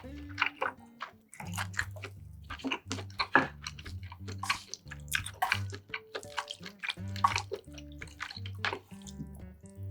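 Close-miked chewing and wet mouth sounds of a person eating, many short crisp clicks and smacks in quick succession, over quiet background music.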